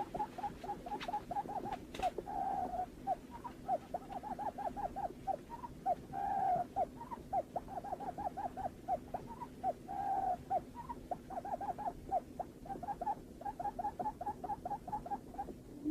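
Barred buttonquail calling: a rapid run of short notes, about five a second, broken now and then by a longer, drawn-out note. A low steady hum runs underneath.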